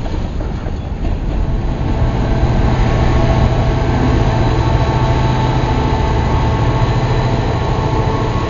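HO scale model coal train rolling past on the layout track: a steady rumble of wheels and motor that grows louder about two seconds in and then holds, with a faint steady hum above it.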